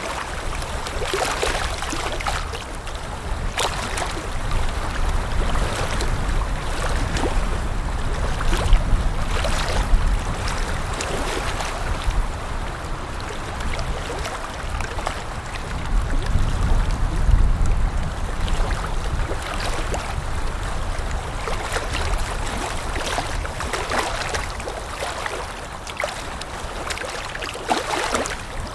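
Water lapping and splashing in irregular small slaps, over a low steady wind rumble.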